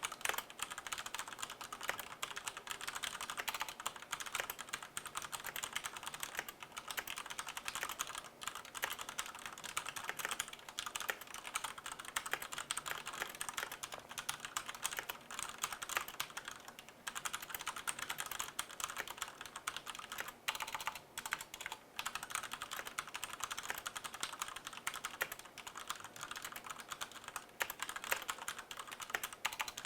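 Continuous fast typing on a DECK Mantella mechanical keyboard with Cherry MX Black linear switches: a dense, rapid stream of key presses that thins briefly twice.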